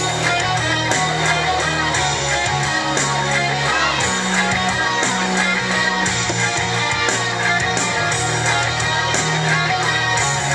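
Rock-style music with strummed guitar over a steady bass line, the soundtrack of a holiday light show.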